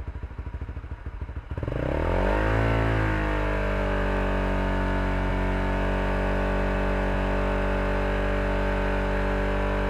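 Honda Supra GTR150's single-cylinder engine, exhausting through an aftermarket MVR1 power pipe, idling with an even putter. About a second and a half in it is revved up and held steady at half revs, which reads about 80 dB on a sound meter.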